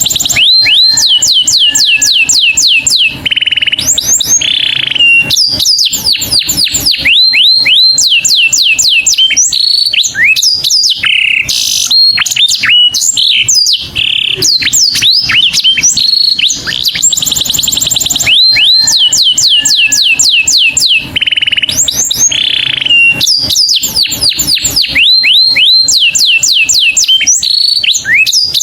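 Canary singing continuously and loudly: fast runs of falling whistled sweeps and rapid trills, broken by short held notes, with phrases that come round again.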